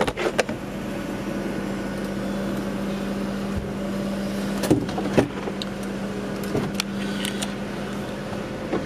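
The electric roof and window motors of a Mercedes-Benz CLK500 convertible give a steady hum as the roof finishes closing. The hum stops about five seconds in with two clunks, followed by a few light clicks. The car's 5.5-litre V8 idles underneath.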